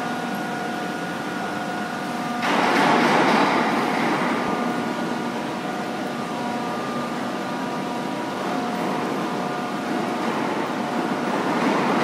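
CK6031B heavy-duty face lathe running: a steady machine drone carrying several steady whining tones. About two and a half seconds in, a louder rushing noise comes in suddenly and fades over a few seconds, and it swells again near the end.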